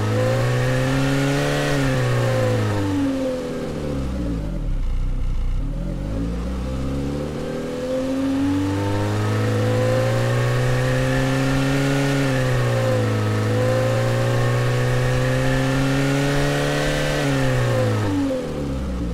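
Car engine sound resynthesized by the AudioMotors plugin in RPM mode, its pitch following the RPM setting. It climbs over the first couple of seconds, falls back to a low idle, then rises again around eight seconds in and is held high with a brief dip. It drops back to idle near the end.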